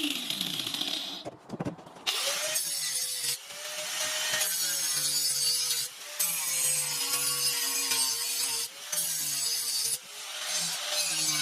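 Angle grinder with a wood-cutting disc sawing through wood: a steady motor whine with the rasping noise of the cut. The cut eases off briefly between about one and two seconds in, then resumes.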